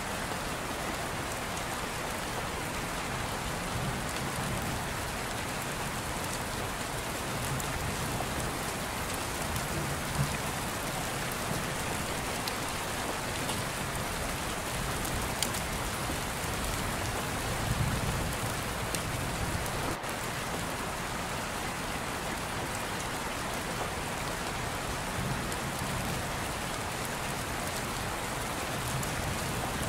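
Steady rain: an even hiss with a few scattered light ticks.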